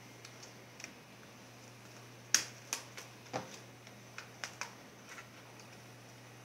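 A run of about eight small sharp clicks and taps from handling the parts of an Acer Aspire One netbook being taken apart, the loudest a little over two seconds in.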